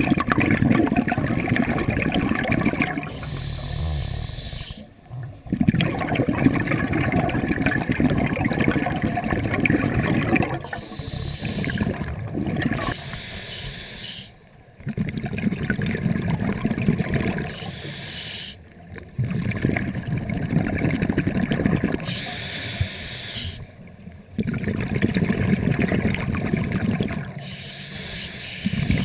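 Scuba diver breathing through a regulator, heard through the camera housing: several seconds of bubbling exhalation alternate with shorter hissing inhalations, about five slow breaths.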